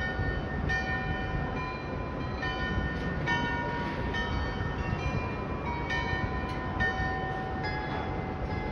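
The Glockenspiel bells in the tower of Munich's New Town Hall playing a melody, struck notes of different pitches about twice a second, each ringing on into the next, over a low steady rumble.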